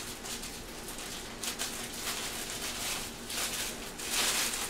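Bread being handled and added to a blender, with intermittent rustling and crinkling that comes and goes several times.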